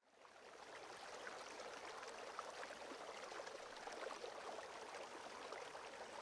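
Faint, steady rush of running water, fading in at the start.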